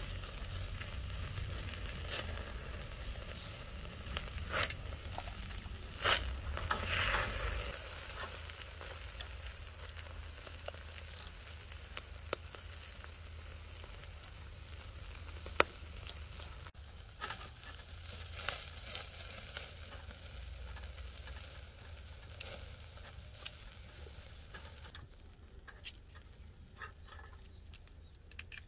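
Black pork belly sizzling on a wire grill over a coal-briquette fire, with scattered sharp clicks of metal tongs on the grill wire. The sizzle drops off near the end as the grill basket is lifted off the heat.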